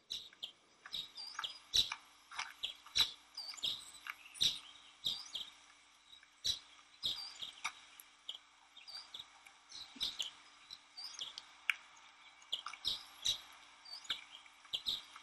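Birds chirping, many short tweets and calls in quick succession, over a faint steady low hum.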